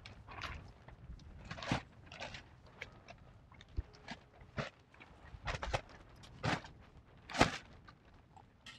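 Scattered brief rustles and knocks of handling noise, about ten at uneven intervals, the loudest one about seven and a half seconds in.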